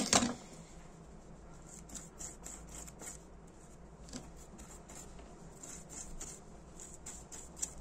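A small bristle brush scrubbing a tiny Dunhill Rollagas lighter part clean, with faint scratchy rubbing and light scattered ticks. A brief louder handling knock comes right at the start.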